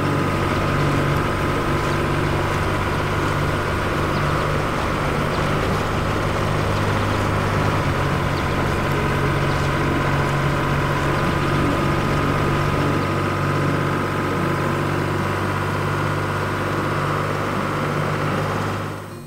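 Tractor-type farm harvester engine running steadily at an even pitch, dropping away near the end.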